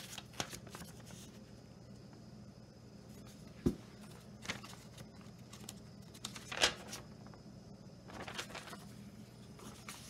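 A thin paper instruction sheet being handled and unfolded: several brief rustles and crinkles, with one sharp light knock a little under four seconds in.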